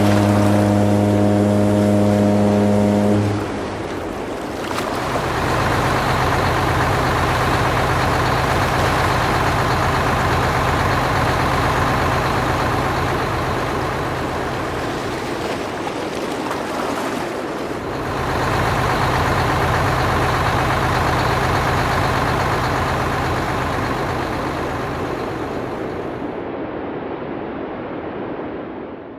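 Sound-effect train: a horn blows a chord for about three seconds, then the train runs steadily with a low engine hum over a rushing noise. The running sound drops out briefly about two thirds of the way through and fades near the end.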